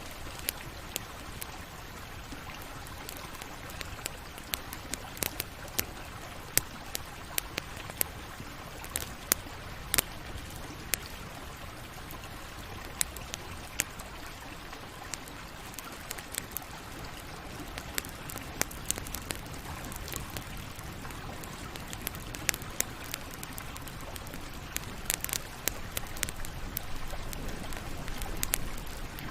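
Campfire burning, with a steady low rush of flame under irregular sharp crackles and pops from the burning wood, thicker in spells.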